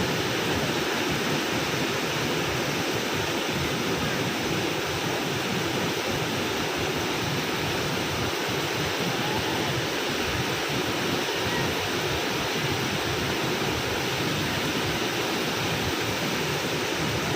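A waterfall swollen by a flash flood, heavy water pouring and rushing in a steady, unbroken noise.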